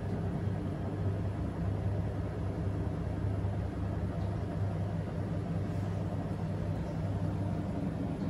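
AEG washing machine running its intermediate spin in the cotton programme: a steady drum-and-motor hum with no clear rise or fall in speed.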